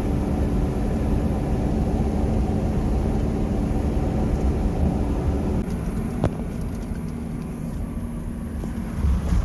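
A vehicle on the move: a steady low engine and road rumble with a faint hum, and one sharp click about six seconds in.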